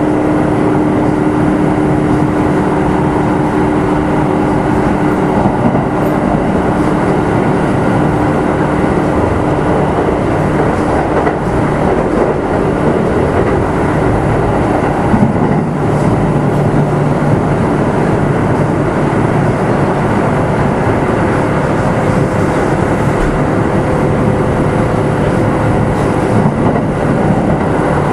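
Running sound inside the motor car of a Kintetsu 2610 series electric train at speed: a steady rumble of wheels on rail with humming tones from the traction motors and gears that shift in pitch as the speed changes.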